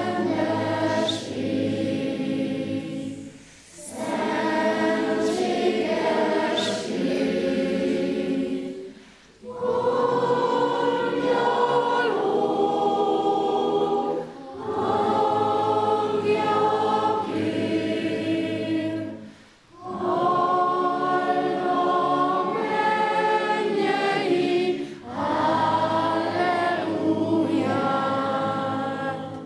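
Children's choir singing a slow song in phrases of about five seconds, with short pauses for breath between them.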